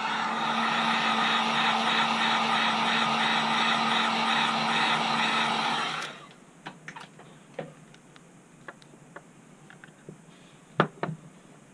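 Heat gun blowing steadily to warm the phone's back-glass adhesive, then switched off suddenly about six seconds in. Scattered light clicks and taps of tools on the phone follow.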